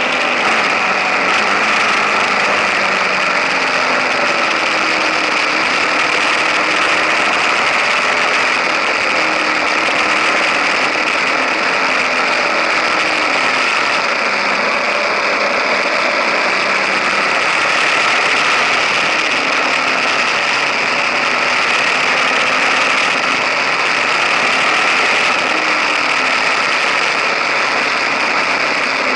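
KTM 1050 Adventure's V-twin engine running under way, mixed with steady wind and road noise picked up right beside the engine and exhaust header. The engine pitch wavers slightly with no break or gear change standing out.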